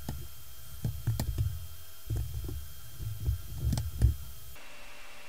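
Computer keyboard and mouse clicks, about seven scattered taps, each carrying a low thud through the desk to the microphone over a low hum. The strongest tap comes about four seconds in, and the hum and taps stop shortly after.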